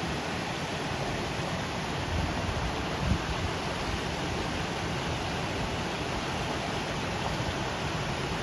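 Waterfall: a steady rush of falling water, with a brief low bump about three seconds in.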